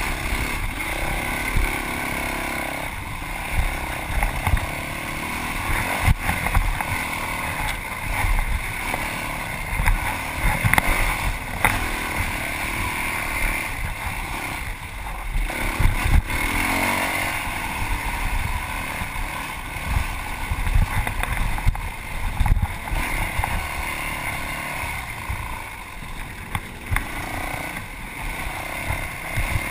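Yamaha WR450F dirt bike's single-cylinder four-stroke engine running hard while being raced over a rough trail, its level rising and falling, with wind on the microphone and frequent knocks from the bike hitting the terrain.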